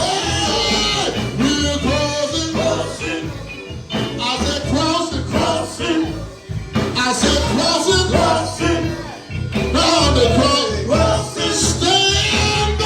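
An upbeat song with singing voices over a band with bass and a steady beat.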